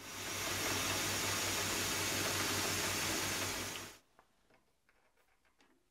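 Steady hissing rush with a faint low pulsing under it, cutting off suddenly about four seconds in.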